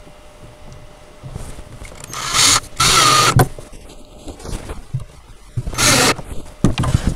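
Cordless drill driving screws into the crib's corner posts: two bursts of the motor, the first about a second long a little over two seconds in, the second shorter about six seconds in, with small clicks of handling between.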